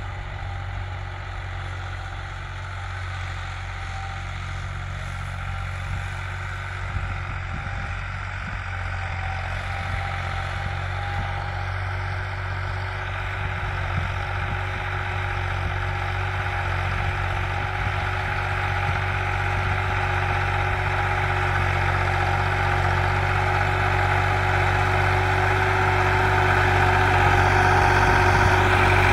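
Massey Ferguson 260 tractor's four-cylinder diesel engine running steadily under load while pulling an eleven-tine cultivator, getting louder as the tractor comes closer.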